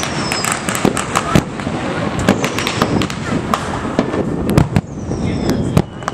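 Distant aerial fireworks going off in a rapid string of sharp reports and crackles, with a few high falling whistles.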